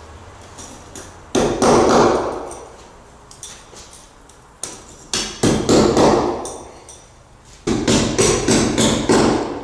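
Hammer driving metal anchors into drilled holes in a concrete floor slab: three runs of rapid blows, each lasting a second or two and fading off.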